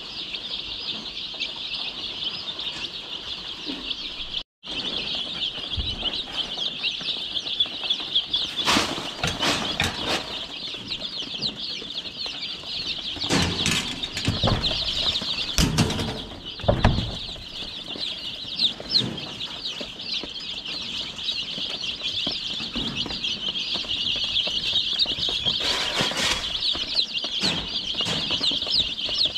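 A large flock of young chicks peeping without pause, many high chirps overlapping into one continuous chorus. Now and then a short knock or rustle stands out, a cluster of them in the middle and one more near the end.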